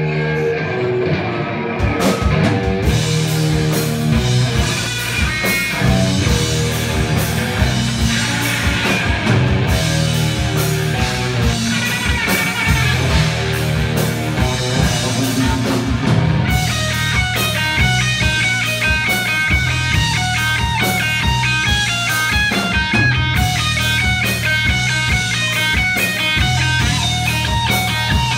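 Live rock band playing an instrumental passage: electric guitars over bass and drum kit. The drums and cymbals come in about two seconds in, and about halfway through the lead guitar switches to a fast repeating run of high notes.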